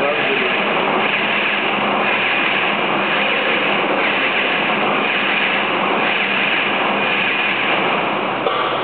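EPS block moulding machine running: a loud, steady mechanical noise with a faint steady hum, changing little throughout.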